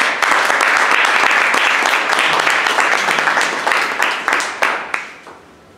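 Audience applauding, dense and loud, thinning to a few separate claps and dying away about five seconds in.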